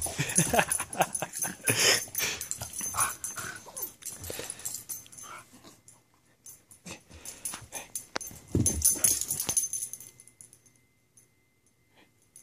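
Chihuahua growling and snuffling in play as it tussles with a hand over a ball, a run of quick, rough, breathy sounds that thin out and stop about two seconds before the end.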